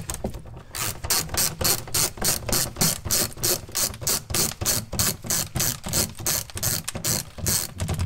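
Hand ratchet with an extension and a T30 Torx bit clicking as it backs out the screws of a car's plastic under-tray oil-access door: an even run of sharp pawl clicks, about four or five a second, that stops just before the end.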